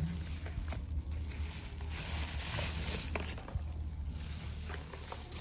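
Handling noise from unboxing a plastic gaming headset: scattered light clicks and brief rustles of the headset and its plastic packaging, over a steady low hum.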